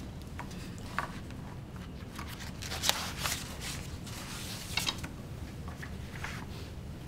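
Quiet room with a steady low hum and a few scattered soft clicks and rustles, the sounds of hands, clothing and small objects being handled and people shifting on their feet.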